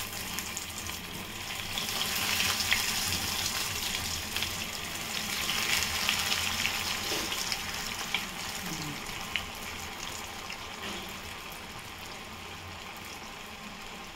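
Sweet corn cutlets deep-frying in hot oil in a kadhai, just dropped in: a continuous sizzle with fine crackles that swells a couple of times and eases off toward the end. A couple of brief clicks in the middle.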